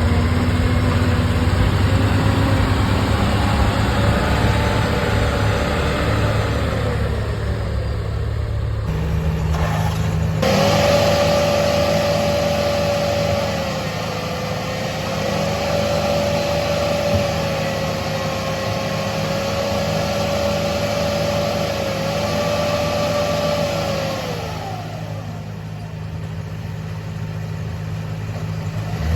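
Diesel engine of a JCB excavator running steadily, with a whine that wavers slightly in pitch and then falls away about 24 seconds in. The sound changes abruptly about 9 and 10 seconds in.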